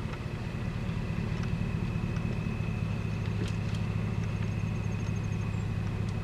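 Car engine idling steadily, a low even hum with a faint high whine above it.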